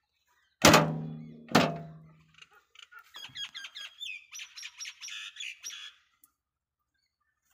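Two loud ringing metallic clangs about a second apart, each with a pitched tone that fades over about a second, as of sheet metal being struck. Then a bird calls: a quick run of high descending chirps followed by a high chattering trill.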